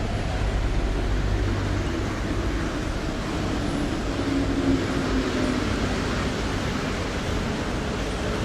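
Chongqing light-rail train passing: a steady rumble and hiss, with a faint low hum in the middle.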